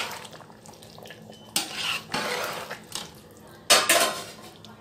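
Metal ladle scraping and clanking against the side and bottom of an aluminium cooking pot as rice and vegetables are stirred, in a few separate strokes, the loudest about three-quarters of the way through.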